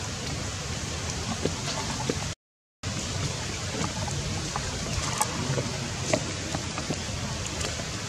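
Running water with light splashing from a young macaque wading through a shallow pool. The sound cuts out for a moment about two and a half seconds in, then resumes.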